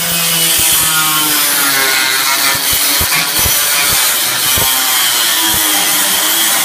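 A handheld power tool runs loudly and continuously as it cuts into a lawn mower's plastic dashboard, its whine wavering in pitch under load, with scattered knocks.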